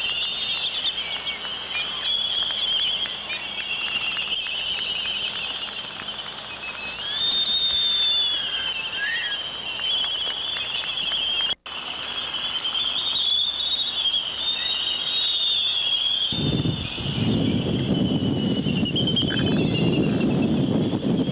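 Seabird colony calling: a continuous chorus of high, wavering squealing calls, with one call rising sharply about seven seconds in. From about sixteen seconds a low rushing noise joins underneath.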